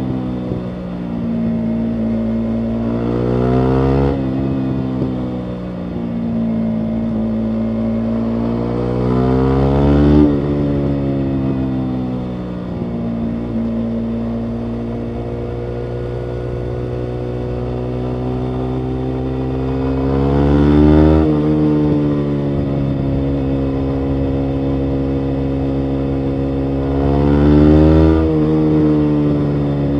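Yamaha MT-125's 125 cc single-cylinder engine running through a full Akrapovic exhaust, holding a steady pitch while cruising. Four times it revs up, the pitch climbing, and each climb ends in a sudden drop.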